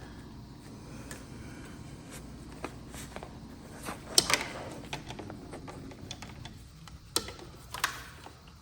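Plastic wiring connectors for motorcycle handlebar controls being handled and clipped: faint rubbing and small ticks, a sharp click about four seconds in and two more near the end.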